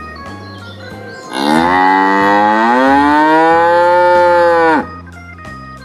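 A cow mooing: one long moo of about three and a half seconds, starting a second or so in, rising in pitch and then holding before it cuts off.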